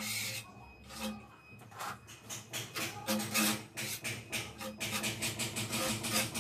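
Small steel trowel scraping over tile adhesive on the back of a large 120 × 60 cm ceramic tile, in a run of short rasping strokes that come faster in the second half.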